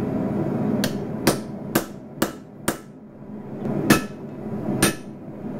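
Ball-peen hammer striking a steel punch to drive a hole through a red-hot steel knife guard on an anvil: five quick ringing blows about two a second, a short pause, then two more.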